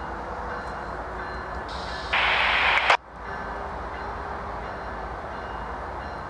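GE diesel locomotives (an ES44DC leading a C40-8W and a C40-9W) running at the head of a freight train, their engines giving a steady rumble. About two seconds in, a loud hiss lasting about a second cuts off abruptly.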